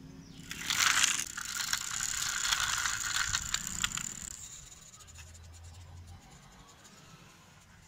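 Toy Tata Ace mini truck rolled along rough concrete, its wheels and running gear giving a rapid clicking whir. The whir starts suddenly about half a second in, is loudest at first, and dies away after about four seconds.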